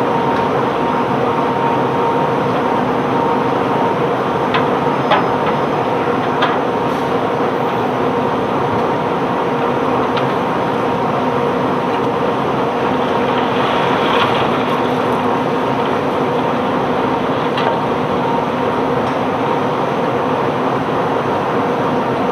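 Heavy unloading machinery running steadily with a continuous droning hum, broken by a few sharp knocks as cobblestones are handled.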